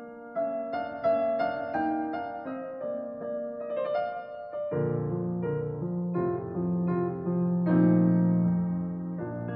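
Background piano music: a slow melody of single struck notes, with deeper held notes coming in about halfway through.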